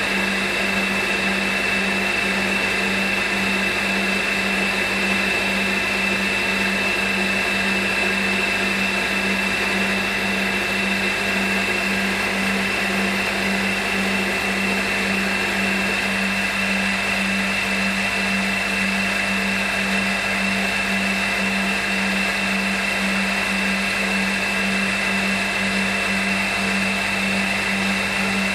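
Small CNC milling machine's spindle running steadily with a high-pitched whine and an evenly pulsing low hum, while an end mill machines the outside of a headphone cable's plug end.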